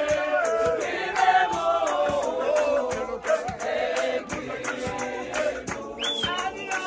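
A group of voices singing a gospel song together, with hand claps keeping a steady beat. About six seconds in, one high voice swoops up and back down above the group.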